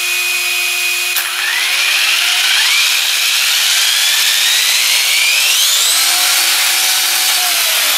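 Electric motor and high-speed gearing of a Tamiya DF-01 radio-controlled car (66-tooth spur, 25-tooth pinion) run up under throttle while the car is held off the ground. A steady fan hum from the speed control gives way about a second in to a whine that climbs in pitch for several seconds and then levels off, over a loud rush of gears and spinning wheels.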